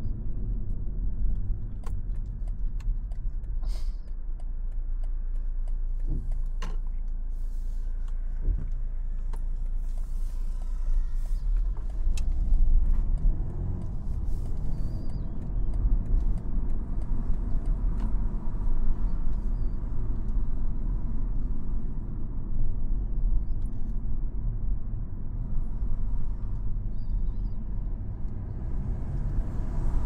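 Cabin sound of a BMW 220i (G42) driving at low speed: a steady low rumble from its B48 2.0-litre turbocharged four-cylinder and the tyres on the road. A few light clicks come in the first ten seconds.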